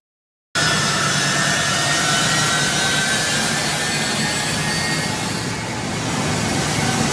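US Air Force C-17 Globemaster III's Pratt & Whitney F117 turbofan engines running close by as the plane taxis: a loud steady jet roar with a high whine that falls slightly in pitch. The sound cuts out for about half a second at the start.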